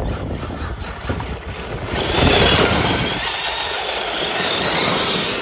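Losi DBXL-E 2.0 electric RC buggy accelerating hard across dirt: a low rumble, then from about two seconds in a loud rush of tyre and drivetrain noise with a high motor whine that climbs in pitch.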